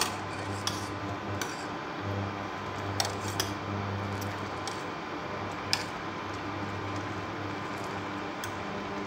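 Metal spoon stirring noodle soup in a stainless steel pot, clinking sharply against the pot several times, over the low hum of an induction cooktop that comes and goes.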